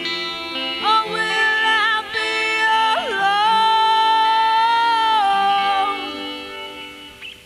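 Acoustic guitar song in an instrumental break: guitar chords under a high lead line that slides up about three seconds in, holds one long note, then steps down and fades near the end.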